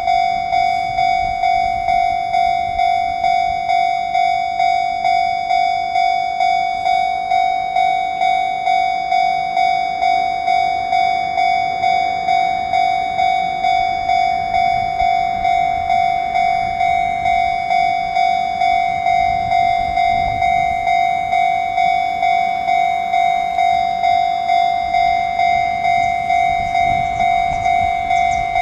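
Japanese railway level-crossing warning bell ringing, one electronic ding about one and a half times a second, steady throughout: the crossing signal for an approaching train.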